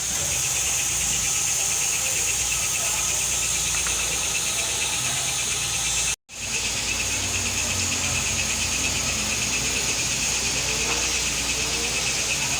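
A machine running steadily, engine-like, with a hiss and a fast, fine ticking over it. It cuts out for an instant about halfway through.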